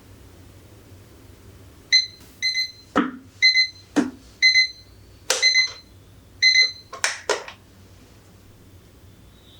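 An electronic device beeping: about six short, high beeps at uneven intervals over a few seconds, mixed with sharp clicks and knocks, over a low steady hum.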